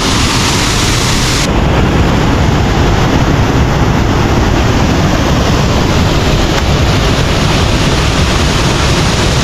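Waterfall's falling water making a loud, steady rush. The highest hiss drops away suddenly about a second and a half in.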